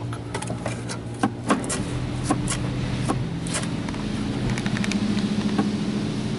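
D&S i5000 touchless car wash machinery humming steadily, heard from inside the car, growing louder toward the end. Scattered sharp ticks and spatters come as the foam and water spray hit the car's glass and body, most of them in the first half.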